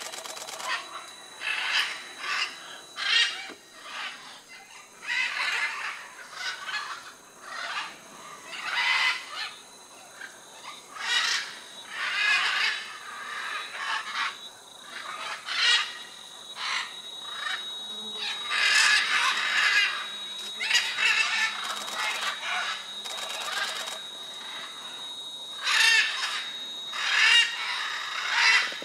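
A flock of macaws calling over and over, calls coming in bursts every second or two, busiest a little past the middle and near the end. A thin steady high tone runs underneath during the second half.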